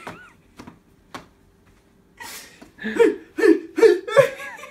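A person laughing: a breathy start about two seconds in, then a run of loud ha-ha bursts.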